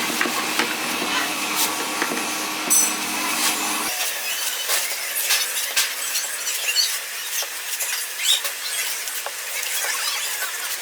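A small motor hums steadily and stops abruptly about four seconds in, followed by rapid scraping and clicking.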